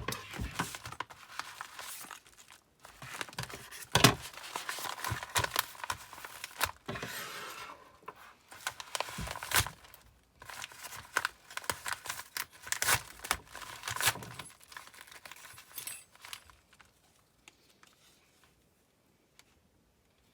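Packaging being handled and opened: paper or plastic crinkling and tearing, with scattered sharp clicks and knocks.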